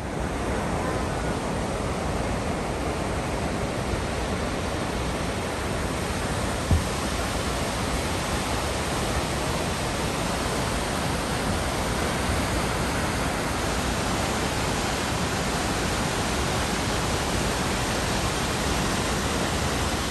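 Firehole Falls, a waterfall on the Firehole River, pouring over rock ledges in a steady, even rush of water. A single short low thump comes about a third of the way through.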